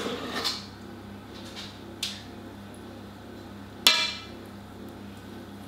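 Cookie dough being scooped by hand from a stainless steel mixing bowl: soft scraping at first, a light knock about two seconds in, then one sharp metallic clink of the bowl with a short ring about four seconds in. A low steady hum runs underneath.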